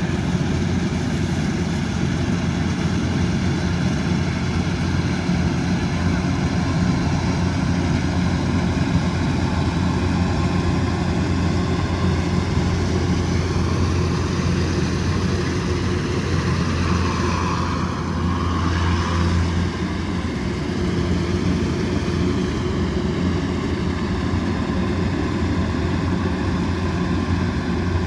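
Kubota DC108X combine harvester's diesel engine running steadily at working speed, with a low hum under the machinery noise. The tone dips and shifts briefly about two-thirds of the way through.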